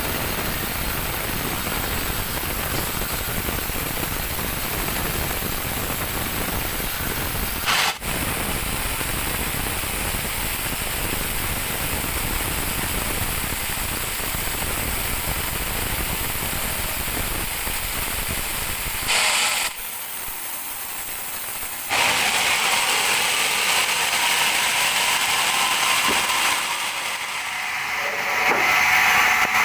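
Sawmill band saw machinery running with a steady mechanical noise, broken by abrupt jumps about eight seconds in and again around twenty seconds in. After that it runs louder and higher-pitched.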